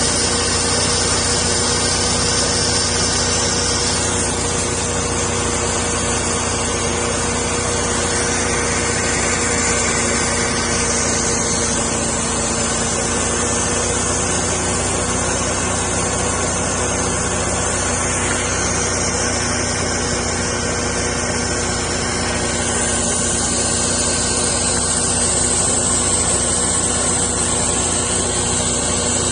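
Homemade sawmill running steadily, its blade cutting through a spalted maple log, with a constant engine hum and a hiss of the cut that shifts in pitch every few seconds.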